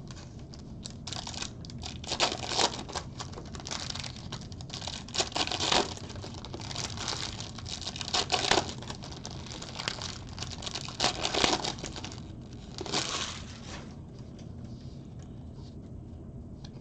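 Plastic trading-card pack wrappers being torn open and crinkled in the hands, in a string of sharp crackling rips that stops about three-quarters of the way through, leaving only faint handling ticks.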